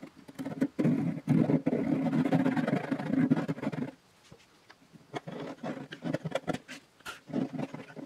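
Fine-toothed handsaw cutting across the edge of a wooden mandolin body: a rapid rasp of back-and-forth strokes for about three and a half seconds, then it stops. After a short pause come lighter scrapes and sharp ticks as a small hand tool works in the cut.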